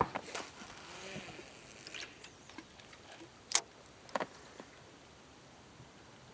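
Fishing line hissing off a feeder rod's spinning reel as the cast feeder flies out, cutting off about two seconds in. Then one sharp click from the reel and a few softer clicks as the line is wound in.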